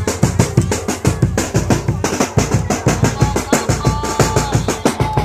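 Music driven by fast, dense drumming with a steady beat, with a held melodic line in the second half.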